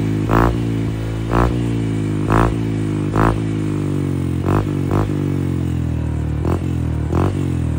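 Honda Click scooter's single-cylinder engine idling through a HUN aftermarket exhaust pipe with no silencer insert, its throttle blipped in short revs about once a second. The idle drifts slowly lower between the blips.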